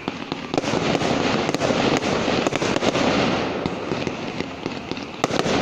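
Fireworks display going off: rockets launching and shells bursting, a dense continuous run of noise with many sharp cracks and pops, and several louder bangs near the end.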